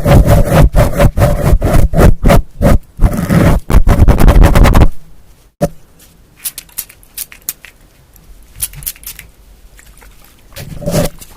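Rapid, loud scratching and tapping on an object held close to the microphone for about five seconds, then it stops abruptly; faint scattered taps follow, with a brief rustle near the end.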